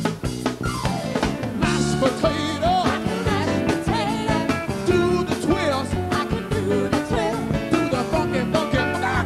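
A soul band playing live, with a male lead singer and backing singers over drums, electric bass, saxophone and keyboards.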